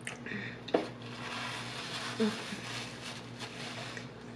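Eating and tableware handling sounds close to the microphone: a sharp knock just under a second in, then a couple of seconds of rustling noise, over a low steady hum.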